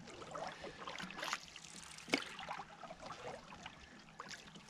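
Wooden canoe paddle stroking through lake water, with soft splashing and trickling as the blade dips and lifts. A single sharp click sounds about two seconds in.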